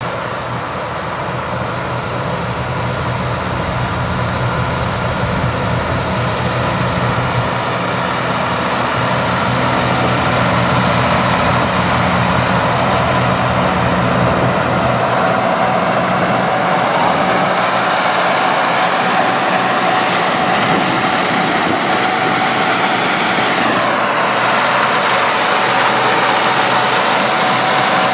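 Gleaner combine harvesting corn, with a tractor and grain cart working alongside: a continuous drone of heavy engines and machinery with a steady high whine over it. It grows louder over the first ten seconds, and the deep low rumble fades about halfway through.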